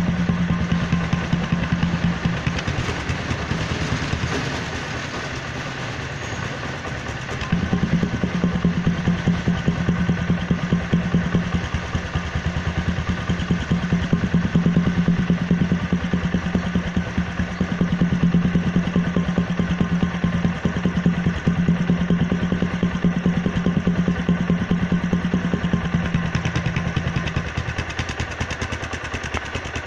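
Motorcycle engine idling, its exhaust pulses blowing into a plastic bottle held at the silencer outlet, which colours the exhaust note. The sound turns quieter and loses its low drone for a few seconds near the start, and again near the end.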